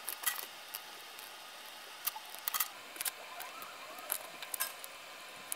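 Faint, irregular small clicks and ticks of red LEDs' wire leads being pushed into the holes of a small printed circuit board and handled between the fingers.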